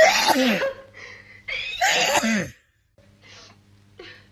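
A woman sneezing twice, about a second and a half apart. Each sneeze is loud and breathy and ends in a voiced "choo" that falls in pitch.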